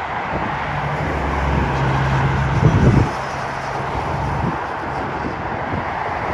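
Steady rumble of road traffic mixed with a taxiing jet airliner's engines at low power. A vehicle engine's low hum runs through the first part, with a brief louder low rumble about three seconds in.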